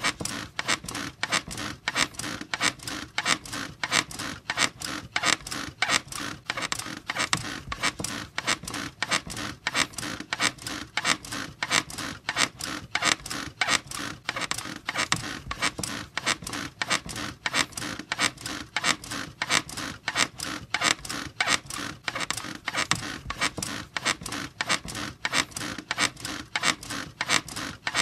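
Bed springs and frame squeaking and creaking in a steady, even rhythm, as if someone were bouncing on a mattress, at about two squeaks a second.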